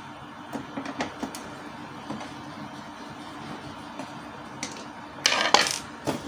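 Screwdriver working the screws of a Canon G1010 printer's plastic rear cover, with a few small clicks, then a loud scrape of plastic a little after five seconds as the back cover is pulled free of the printer body.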